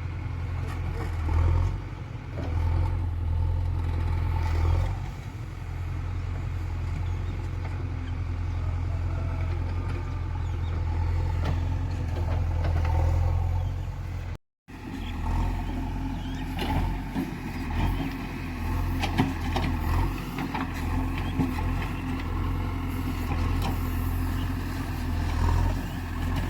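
Diesel engine of heavy farm or earthmoving machinery running steadily. The sound drops out for a moment about halfway through, then carries on.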